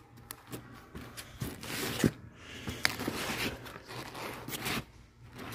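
Comic books being flipped through and shifted in a box: rustling and sliding with light taps and clicks, one sharper click about two seconds in.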